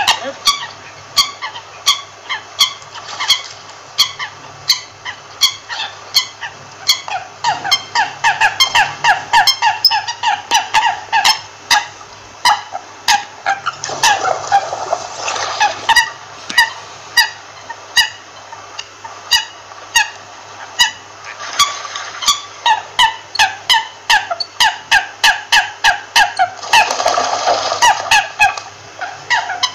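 American coots calling: short, pitched calls repeated several times a second, many overlapping, with a couple of busier, rougher stretches about halfway through and near the end.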